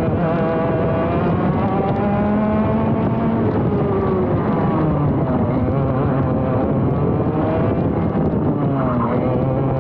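ROK GP Junior two-stroke kart engine heard from on board, revving on track: its pitch climbs under acceleration and drops off again several times as the kart goes through corners.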